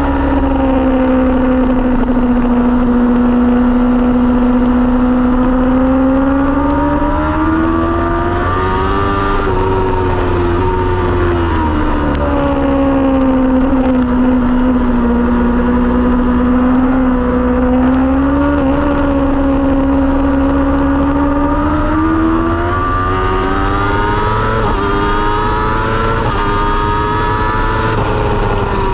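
Kawasaki ZX-10R inline-four engine at track speed. Its revs ease off and hold through the slower corners, then climb in steps through the gears near the end, over steady wind rush.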